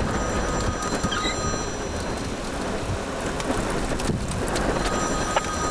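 Steady rushing storm noise of wind and rain.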